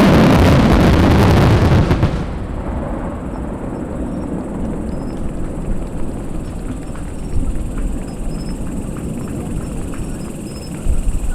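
A dense fireworks barrage of many bursts and crackles, cutting back about two seconds in. A lower, steady rumble with scattered faint pops follows.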